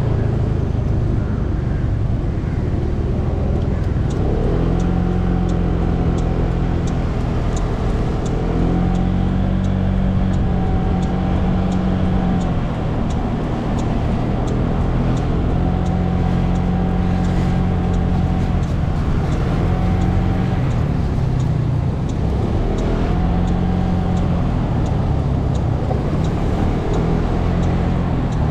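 Small scooter engine running at low road speed, its pitch rising and falling a few times as the throttle is opened and eased, over a steady low rumble of wind on the microphone.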